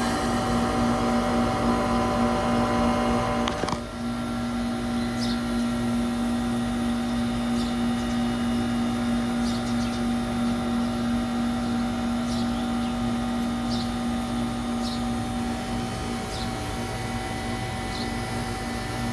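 2003 Carrier TECH2000 38YKC heat pump outdoor unit running with a steady electrical hum. About four seconds in, part of the sound cuts out with a brief dip, and the steady hum carries on.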